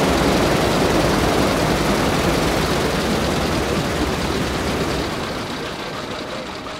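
Three radial engines of a Junkers Ju 52 trimotor running on the ground with propellers turning, a dense steady rumble that fades over the last two seconds.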